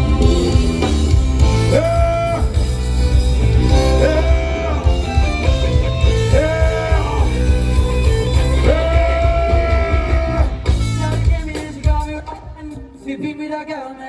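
A band plays with heavy bass and guitar, under a melody of long held notes that slide up into pitch. The band stops about three-quarters of the way through, leaving a quieter, sparse stretch.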